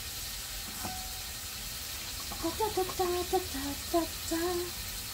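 Onions and tomatoes frying in a pan over a wood fire, a steady sizzling hiss. There is a light clink about a second in, and a woman's voice is heard briefly in the middle.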